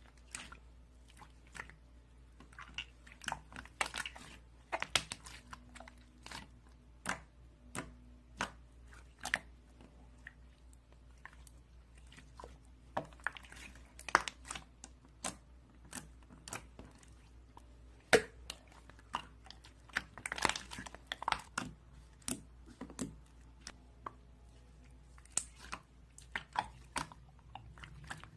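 Slime being pressed and squeezed by hand, giving irregular sharp clicks and pops, some close together in clusters.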